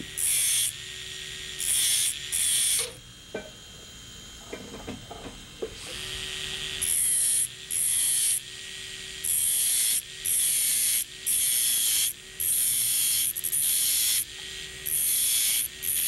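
Carborundum disc on an electric dental handpiece grinding through the shaft of a straight-handpiece bur spinning in a second handpiece: repeated short bursts of high grinding hiss, each under a second, as the disc bites, with the two motors whirring steadily between them. The bursts pause for a few seconds near the start, then resume.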